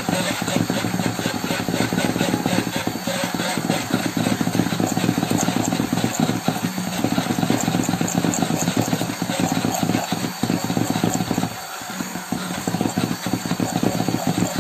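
Hand-held electric stick blender running steadily in a bowl of oil mixture, churning it into an emulsion. The motor eases briefly about three quarters of the way through, then picks up again.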